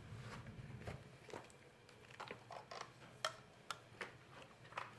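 Faint, irregular ticks and scratches of a pen on a paper checklist as boxes are marked, over quiet room tone.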